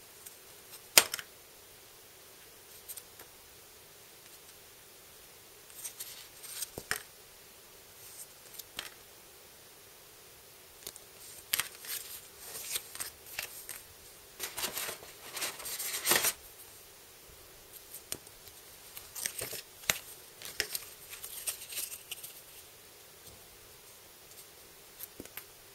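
Game cards and the plastic box insert being handled: scattered clicks and short rustles, with one sharp click about a second in and busier rustling through the middle.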